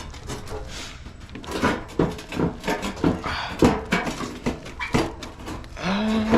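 Irregular metallic clinks and knocks of hand tools and bolts while a steel car fender is being lined up, with a short rising vocal sound near the end.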